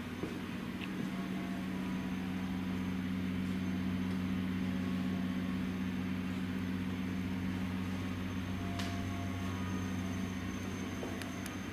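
Steady low droning hum, with a couple of faint clicks in the second half.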